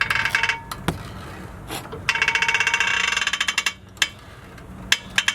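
Three runs of rapid, evenly spaced metallic clicking, the middle one the longest, with a few single knocks between them.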